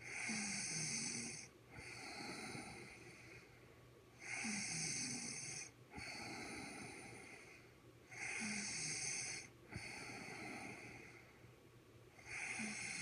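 A woman snoring in her sleep, steady and regular: about every four seconds a loud, hissy snore of about a second and a half, then after a short break a quieter one, three full breaths and the start of a fourth.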